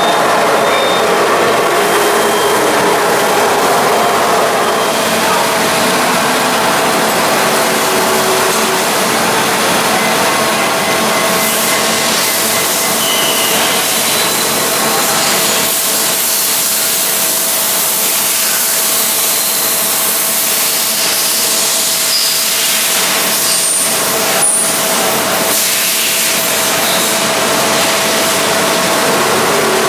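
Tsugami TA3 horizontal machining center running with its coolant nozzles spraying: a steady mechanical hum with a constant whine, over the hiss and splash of coolant. A few brief clatters come about two-thirds of the way through.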